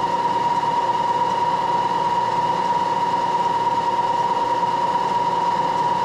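Moore jig borer running with its spindle turning a boring head, not yet cutting, a steady machine hum with a high whine that holds one pitch.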